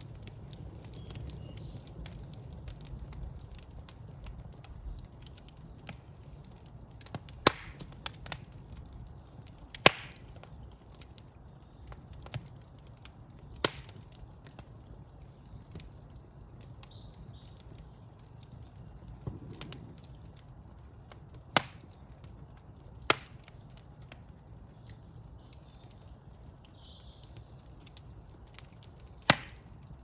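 Wood fire of split logs burning in an open brick fireplace: a low, steady rumble of flame with sharp crackles and pops. About half a dozen loud pops come several seconds apart.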